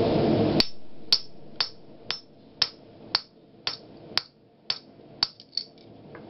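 Hammer blows on the top die of a blacksmith's guillotine fuller tool, about two sharp ringing metal strikes a second, ten in a row, fullering a red-hot bar held between the dies. Near the end come a few quicker, lighter taps. A steady rushing noise stops suddenly at the first blow.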